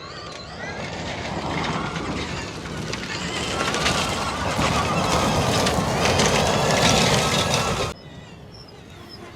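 Extreme E Odyssey 21 electric SUV driving past: a high electric-motor whine that glides up and down over loud tyre noise, growing louder toward a peak. It cuts off sharply about eight seconds in, leaving a quieter background.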